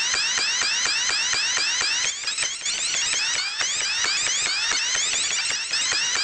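Loud electronic alarm-like sound made of rapidly repeating rising chirps, about four a second, with a brief dip a little past two seconds in.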